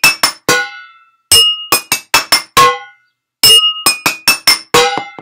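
A wine glass and other household items struck in three quick runs of sharp, loud clinks, each strike ringing briefly at a few different pitches. It is an improvised sound effect for machines ringing, dinging and clanking.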